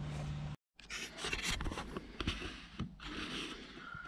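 A low steady hum stops abruptly about half a second in. It is followed by light, irregular scraping and rubbing handling noises with a few small clicks.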